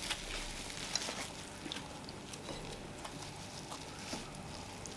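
Faint eating sounds: scattered soft clicks and smacks from people eating fufu with vegetable soup.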